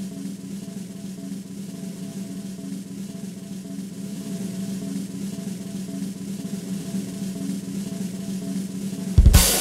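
Snare drum roll, a suspense sound effect, slowly growing louder and ending in a single loud crash about nine seconds in.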